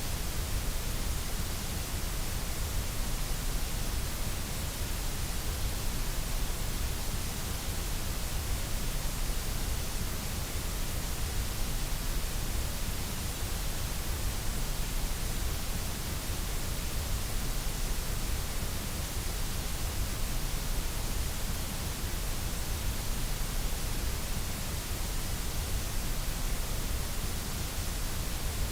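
A steady, unchanging white-noise track: a continuous even hiss that spans low to high pitches, with no tones, clicks or breaks.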